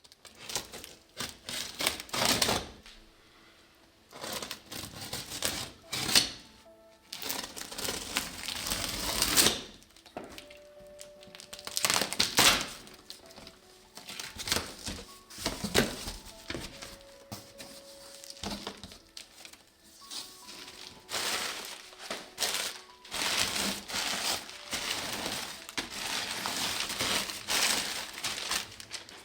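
Packaging being handled and unwrapped, rustling and crinkling in irregular bursts, over faint background music.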